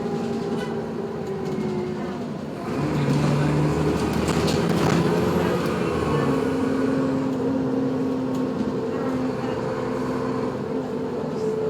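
Moving vehicle's motor or drivetrain: several steady whining tones over a running hum, getting louder about three seconds in and stepping to a different pitch about six seconds in. This is the unusual noise the vehicle is making.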